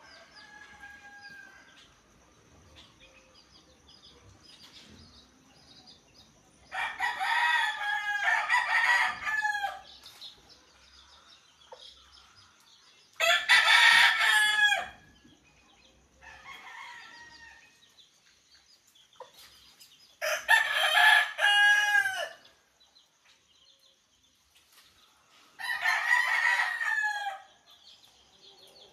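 Rooster crowing: four loud crows about six seconds apart, with a fainter call between them. A steady high-pitched whine runs underneath.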